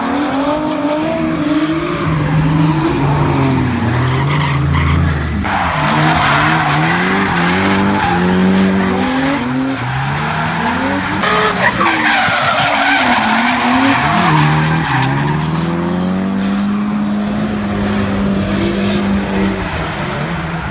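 Drift cars' engines revving hard, the pitch rising and falling again and again with the throttle, over steady tyre screech as the cars slide sideways through the bends.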